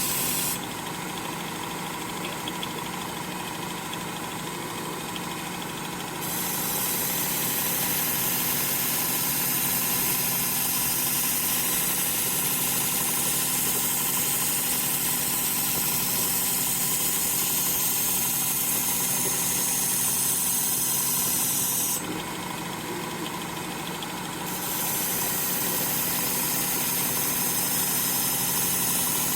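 Work Sharp belt sharpener running steadily with its tool grinding attachment and a well-worn 80-grit belt. Steel grinds on the belt with a loud high hiss, which stops twice between passes (from about a second in until about six seconds, and again for a couple of seconds near the end), leaving only the motor hum.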